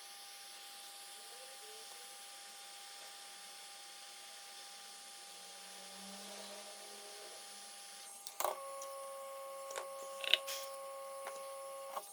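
Steady electrical hum with a faint high whine; about eight seconds in a click brings in a louder hum, a few sharp clicks follow, and the louder hum cuts off with a click near the end.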